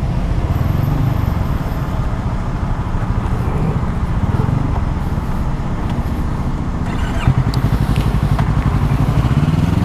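Yamaha R3 sport bike's 321 cc parallel-twin engine running steadily while the bike is ridden.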